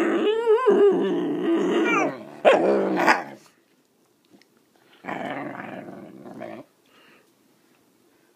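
Puppy growling and barking: a long growl with a wavering pitch for about two seconds, two sharp barks about half a second apart around two and a half seconds in, then a quieter, rougher growl a couple of seconds later.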